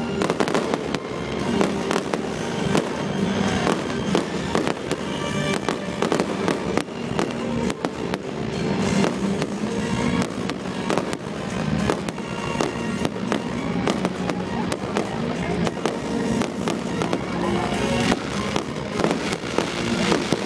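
Aerial fireworks display: a rapid, irregular string of bangs and crackles from bursting shells, with music underneath.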